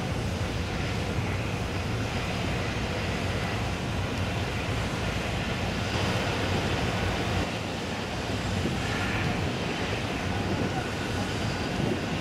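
Ship diesel engines running with a steady low drone, a continuous hum under a haze of harbour noise.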